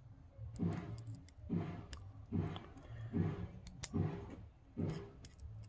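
Small screwdriver turning the retaining screw of a spinning-reel handle knob, in about six short twisting strokes under a second apart, with a few light clicks.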